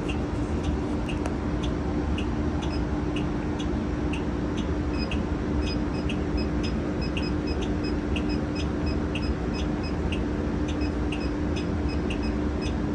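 Transit bus idling with a steady low rumble and hum, with a regular ticking about three times a second over it.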